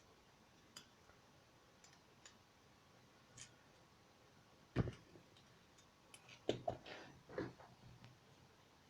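Scattered small clicks and taps of the small parts of a Samsung Galaxy Note being handled during a charging-board swap, with a sharper knock about five seconds in and a quick run of clicks near seven seconds.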